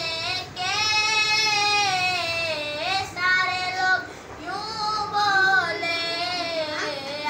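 A boy singing solo in a high voice, holding long notes that bend and glide in ornamented phrases, with brief pauses for breath between lines.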